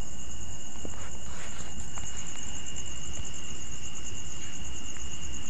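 Steady background noise with no speech: a low hum under a continuous high-pitched, fast-pulsing whine and a fainter steady tone, with a few faint clicks.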